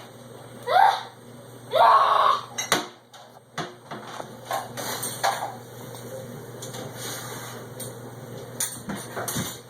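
Dishes and cutlery clinking and knocking as a dishwasher is unloaded: scattered sharp clicks and knocks at an uneven pace. Two short vocal sounds come in the first two seconds.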